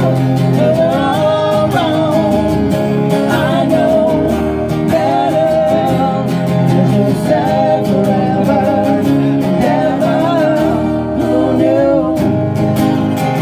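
Live song: two acoustic guitars strummed together under a sung vocal melody.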